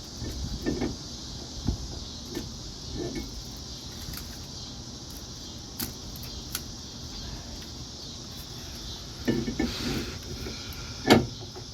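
Metal brake parts being handled at a car's front wheel hub: scattered clinks and knocks, with a sharper clank near the end, over a steady background hiss.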